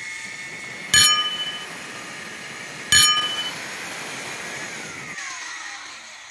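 Angle grinder with a thin cutting disc running at speed and cutting through a square metal bar, with a steady high whine. Two sharp metallic clangs with ringing about two seconds apart are the loudest sounds. Near the end the whine falls steadily in pitch as the grinder spins down.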